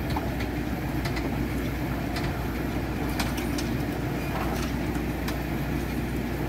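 A vehicle engine idling steadily, with scattered light clicks and knocks over it.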